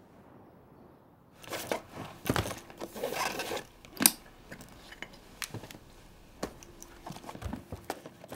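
Paper rustling and being handled, with small sharp taps and clicks, starting a little over a second in.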